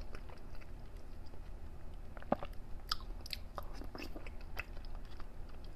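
Close-miked eating of chilled grape fruit jelly: soft wet chewing with irregular small mouth clicks and smacks.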